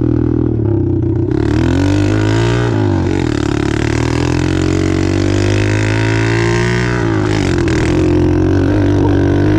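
Apollo 125cc pit bike's single-cylinder four-stroke engine running under way, not yet fully warmed up. The revs dip and climb again about 3 seconds in and once more about 7 seconds in.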